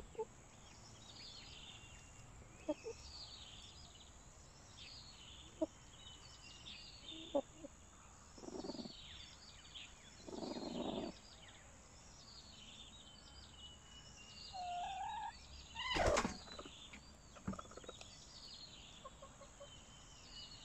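Laying hens settled in nest crates, giving occasional short soft clucks and low murmurs, with a brief rising call and one loud sharp sound about three-quarters of the way through. A faint high chirp repeats about once a second in the background.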